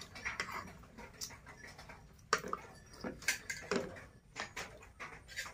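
Spoons clinking and scraping against plates during a meal, in scattered short clicks, with a couple of short falling squeals about two and four seconds in.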